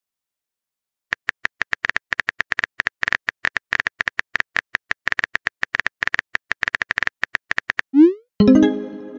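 Simulated phone-keyboard typing clicks from a texting-story app: a fast, uneven run of short clicks for about seven seconds as a message is typed. Near the end comes a quick rising whoosh as the message is sent, then a short chiming message tone that fades.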